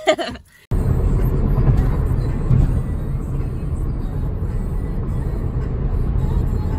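Steady low rumbling noise of a car moving along the road. It starts suddenly a moment in.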